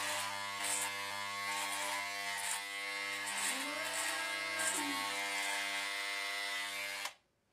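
Corded electric shaver buzzing steadily, with a rasping crackle each time it passes over the stubble on the jaw and neck. It is switched off suddenly near the end.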